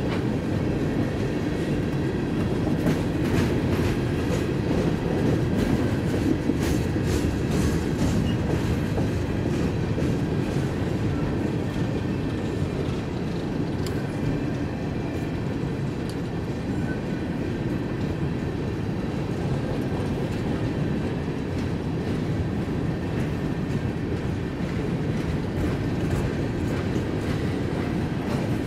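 Freight train of coal cars rolling past: a steady rumble of steel wheels on rail with the clicking of wheels over rail joints, the clicks thickest in the first several seconds.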